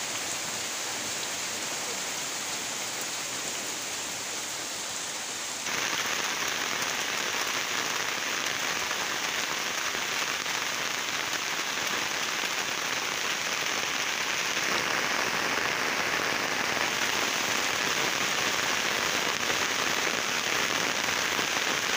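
Heavy rain falling steadily, an even hiss of drops that gets suddenly louder about six seconds in.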